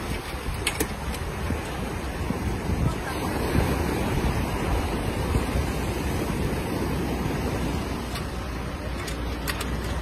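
Surf breaking and washing in the shallows around a grounded sailboat's hull, with wind buffeting the microphone.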